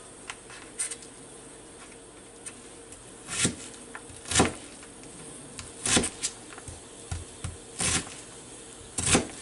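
Chef's knife chopping through an onion onto a thin plastic cutting mat: about six separate sharp knocks, spaced unevenly a second or so apart.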